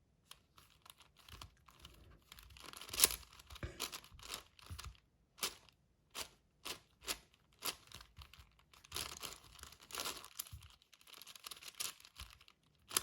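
Plastic layers of a 6x6 Rubik's Cube being turned by hand: a run of irregular clicks and clacks, the loudest about three seconds in.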